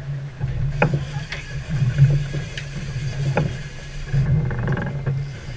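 A sportfishing boat's engine runs with a steady low hum. Several short sharp clicks and a brief fast rattle near the end sound over it.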